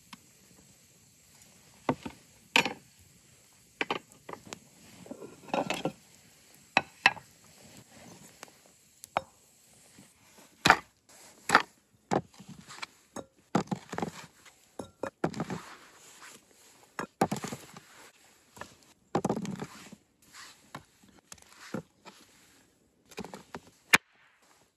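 Chopping on wood: a series of sharp knocks at uneven intervals, some heavier and longer than others.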